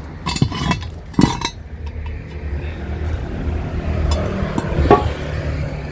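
Scrap metal pieces being handled, clinking and knocking against each other in three short bursts, the last near the end, over a steady low rumble of traffic.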